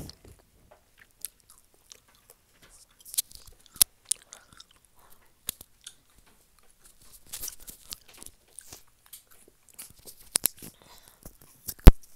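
Scattered mouth clicks and crackles picked up very close on a wired earphone microphone held at the lips, with a few sharp clicks, the loudest near the end.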